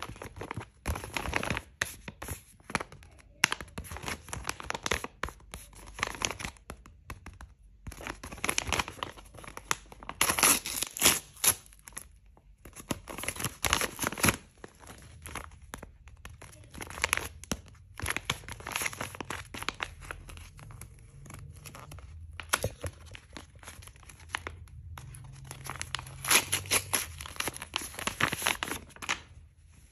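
Sheets of paper being torn and crumpled by hand in irregular bursts with short pauses, as a homemade paper blind-bag packet is ripped open.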